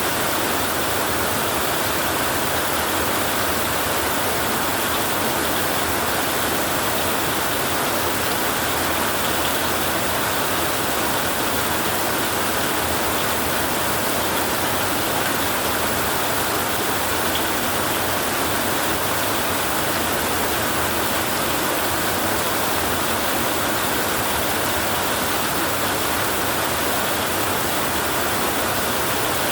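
Heavy rain drumming on a tin roof: a dense, unchanging hiss with no single drops, gusts or thunder standing out.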